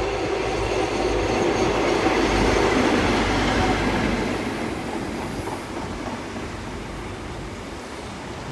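CrossCountry HST coming into the station, led by a class 43 diesel power car: engine and wheels on the rails build to their loudest about two to three seconds in, then fade as the train runs on past.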